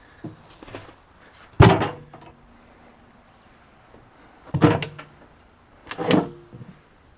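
Three heavy bangs, the first about a second and a half in, then two more about three seconds and a second and a half later, each with a short ringing tail.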